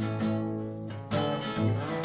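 Steel-string acoustic guitar strumming chords, with a second guitar playing along.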